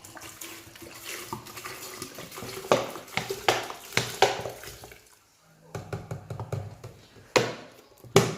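Vinegar poured from a bottle into a jar of cucumber pickles, a splashing stream with several loud glugs. Near the end come two sharp knocks.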